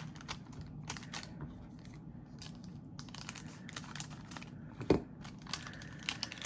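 Foil wrapper of a trading card pack crinkling and crackling as it is opened and handled, with a sharper click about five seconds in.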